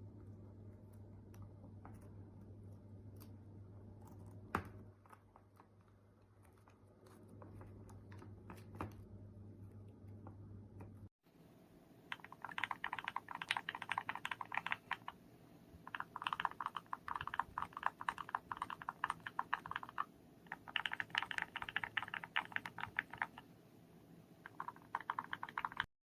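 Mechanical keyboard switches on a switch tester being pressed: a few separate clicks over a low hum at first, then, from about halfway in, four runs of rapid, dense clacking as the switches are hammered repeatedly.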